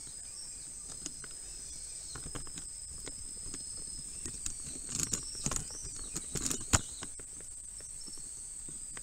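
A steady high-pitched tone, with a fainter second tone below it that stops about four seconds in. Scattered light clicks and knocks bunch up between about five and seven seconds in, the sharpest near seven seconds.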